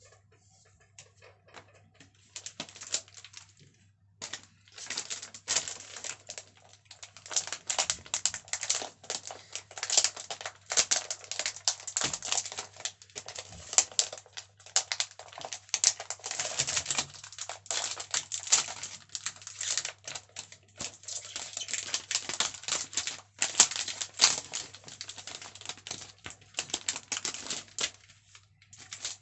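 Plastic wrapping on a pack of LEGO City road plates crinkling and crackling as it is handled and peeled open by hand. It is faint for the first couple of seconds, then a busy, irregular crackle.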